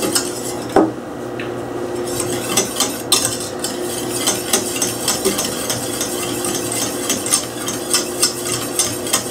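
Wire whisk stirring béchamel sauce in a stainless steel saucepan, its wires scraping and clicking against the pan a few times a second as the milk and roux thicken, over a steady low hum.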